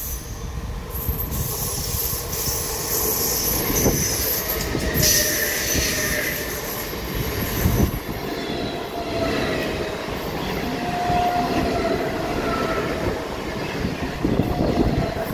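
EMU local train running past close by: steady rumble of steel wheels on the rails with high-pitched wheel squeal and a few knocks as the wheels cross rail joints.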